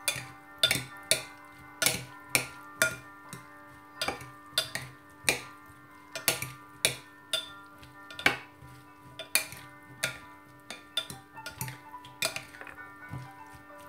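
Plastic salad servers knocking against a ceramic salad bowl as chopped salad is tossed: sharp, irregular clacks about twice a second, over quiet background music.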